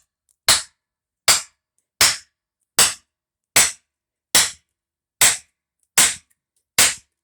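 Hammer striking wooden shims to drive them into the slots of a wooden pallet and split its boards apart: nine sharp, regular blows, about one every 0.8 seconds.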